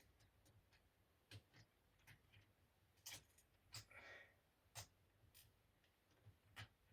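Faint, irregular clicks and taps of a small screwdriver and tiny screws on the laptop's hard-drive mounting bracket as it is unscrewed, with a brief scrape about four seconds in.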